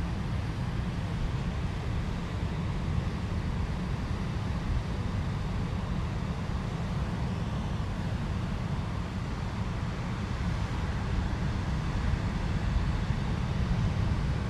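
Steady low rumbling noise with a light even hiss above it and no distinct events.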